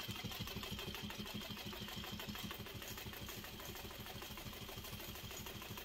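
Juki industrial sewing machine running steadily to stitch a long basting seam, with a fast, even rhythm of needle strokes and a faint high motor whine.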